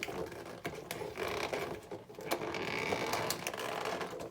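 Toy packaging being handled and pried at by hand: irregular clicks, scrapes and rustles, with a short squeak a little after two seconds in.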